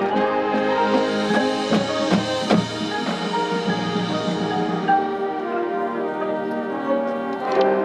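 High school marching band playing: brass and woodwinds holding sustained chords over front-ensemble mallet percussion, with a cluster of drum and percussion hits about two seconds in and another accent near the end.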